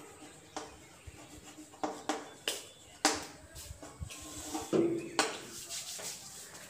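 Chalk on a chalkboard: a string of irregular sharp taps and short scrapes as words are written and underlined, with a short low hum about five seconds in.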